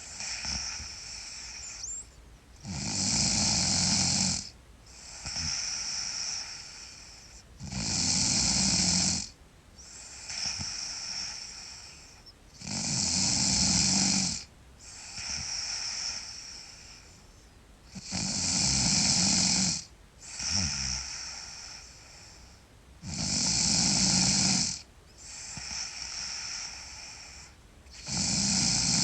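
A girl snoring loudly in her sleep. A loud snore comes about every five seconds, six times in all, and a quieter breath sound falls between each pair of snores.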